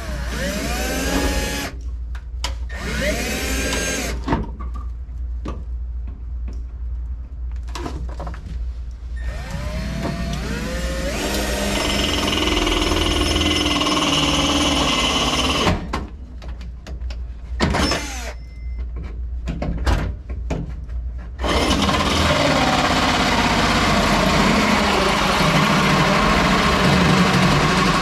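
Power drill running a 1 3/4 inch hole saw into the metal firewall plate. The motor whines up in several short trigger pulls, then the saw cuts in longer stretches of steady grinding, the longest and loudest near the end.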